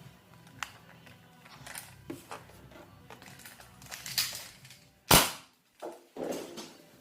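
Toy Nerf blaster handled with a few small clicks, then fired once with a sharp pop a little after five seconds in.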